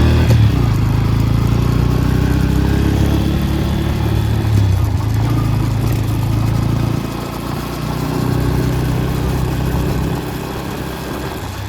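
Bajaj Pulsar N160 motorcycle engine running steadily, with its level dropping briefly about seven seconds in and easing off again near the end.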